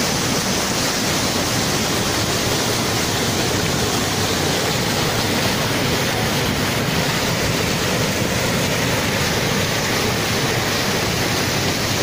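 Waterfall close up: white water pouring over rocks in a steady, unbroken rush of noise.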